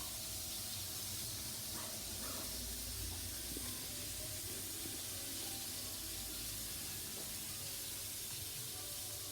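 Steady high hiss with no clear events.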